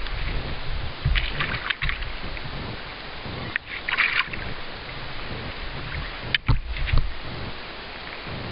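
Landing net dipped into calm lake water beside a pontoon boat, with water splashing and dripping in short bursts over a steady hiss, and a few knocks from handling the net and boat later on.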